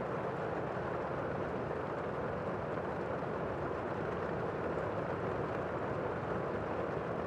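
Steady rushing roar of strong tornado winds, an even noise with no breaks or distinct impacts.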